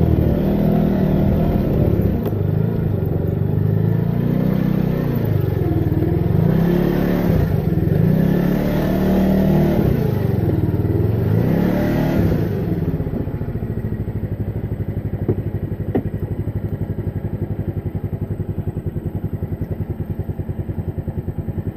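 Moped engine running under way, its pitch rising and falling with the throttle several times over the first half. About halfway through it settles into a steadier, quieter, evenly pulsing run.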